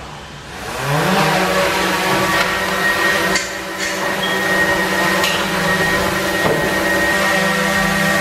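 DJI Mavic 2 Pro quadcopter's motors and propellers spinning up for takeoff, rising in pitch about a second in, then holding a steady high buzzing whir as the drone hovers in a room.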